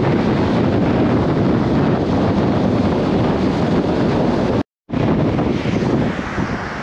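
Sea surf washing over rocks, with strong wind buffeting the microphone. The sound cuts out for a moment about two-thirds of the way through, then the wind and surf go on.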